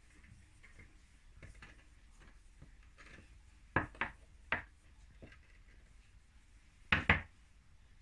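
Faint rubbing of pastry dough, then sharp knocks of a small plastic rolling pin on a ceramic fluted tart dish and the worktop while the dough is pressed into the dish: three taps about four seconds in, and a louder double knock about seven seconds in.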